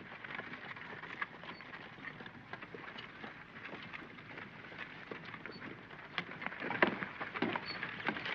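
Footsteps approaching, heavy knocks about two-thirds of a second apart from about six seconds in, over a steady crackling hiss with many small clicks.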